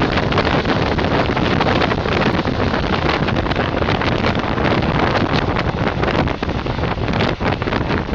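Steady rush of wind buffeting the microphone at the open window of a moving passenger train, mixed with the train's running noise on the rails.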